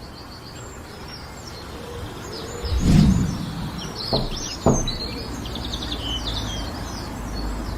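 Small birds chirping over a low rumble. About three seconds in comes a dull thump, the loudest sound, followed a second or so later by two sharp clicks half a second apart.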